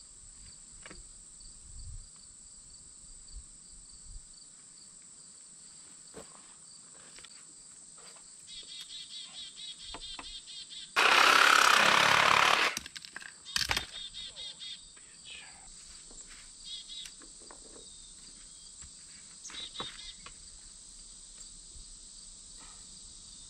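Crickets trill steadily while PVC pipe fittings click and knock as they are handled. About eleven seconds in, a cordless drill runs against a PVC pipe for about a second and a half, the loudest sound.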